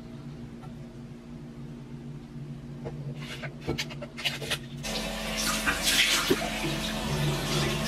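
Water running from a bathroom sink tap and splashing off hands into the basin, starting suddenly about five seconds in. Before it, a few light clicks as a plastic tumbler lid is handled.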